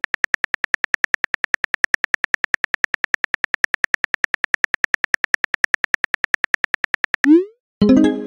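Phone keyboard typing sound effect: rapid, even taps, about eight a second, that stop about seven seconds in. A short rising swoosh follows as the message is sent, then a brief tuneful sound of about a second.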